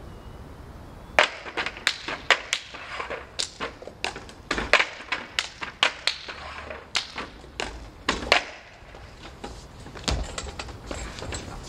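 Cups and hands knocking and tapping on a tabletop in a quick, irregular run of sharp knocks that starts about a second in and thins out after about eight seconds, with one heavier thud near the end.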